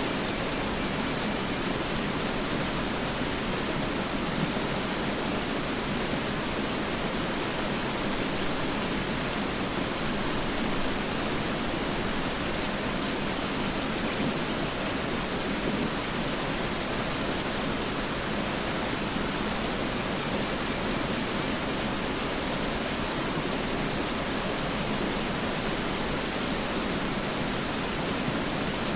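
Mountain river flowing: a steady, even rush of water with no breaks or changes.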